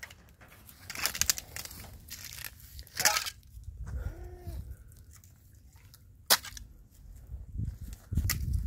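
Scattered crunching and rustling in dry pasture grass as calves move close around the trough, with a few sharp knocks. A faint short call rises and falls about four seconds in.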